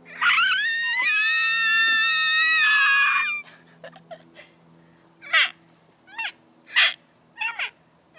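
A person's voice making a long, high-pitched squeal held for about three seconds, then five short squeaky yelps, like a mock animal cry.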